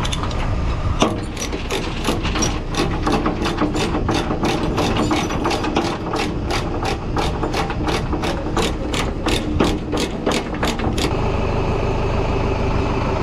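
Ratchet binder on a tie-down chain being cranked to slacken it: a steady run of sharp clicks, about three a second, starting about a second in and stopping near the end, over an engine idling.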